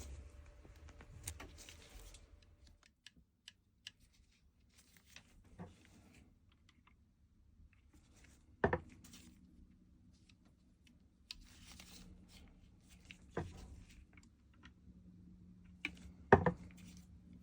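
Quiet handling of small parts: light clicks and brief scraping or rustling, with three sharper knocks, the last near the end.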